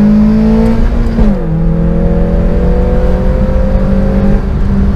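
Toyota 3S-GE Beams four-cylinder engine in a BMW E30, heard from inside the cabin while accelerating hard. The revs climb, drop sharply on an upshift a little over a second in, climb again through the next gear and level off near the end.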